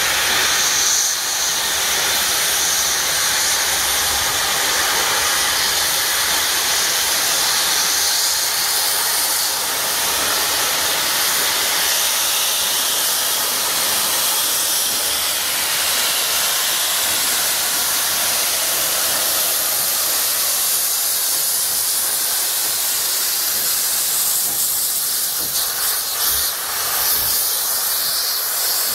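Steam locomotive 3801, a New South Wales C38-class Pacific, venting steam as it departs: a loud, steady hiss heard from close above the engine.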